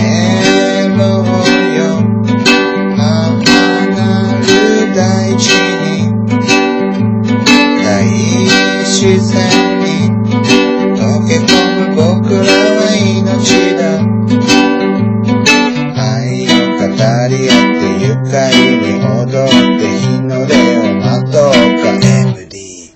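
Background music led by plucked strings, in the guitar or ukulele family, over a steady beat. It cuts out abruptly near the end.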